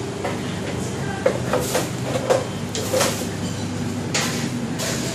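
Kitchen clatter: several sharp knocks and clinks, like dishes and utensils being handled, over a steady hum of machinery.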